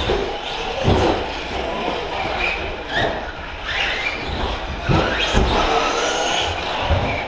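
Electric radio-controlled short-course trucks racing on a carpet track: motor whine rising and falling in pitch as they accelerate and slow, with several sharp thumps.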